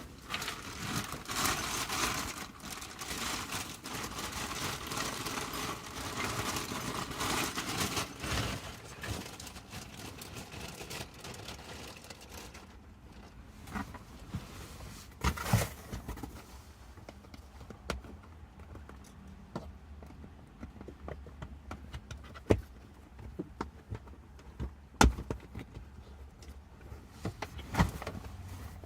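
Hands working inside a car seat back: rustling and scraping of seat fabric and padding for about the first twelve seconds, then scattered sharp clicks and knocks of plastic parts.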